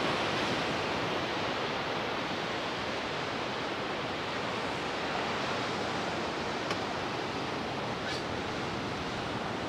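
Steady, even wash of ocean surf heard from above the beach.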